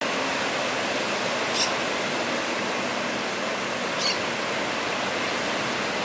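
Steady rushing noise of ocean surf breaking on a beach, with two short high chirps about a second and a half and four seconds in.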